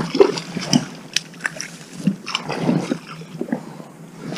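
Irregular clicks, knocks and rustling of tackle and hands as a small pike is fought and brought in on a light spinning rod, with a denser burst of noise about two seconds in.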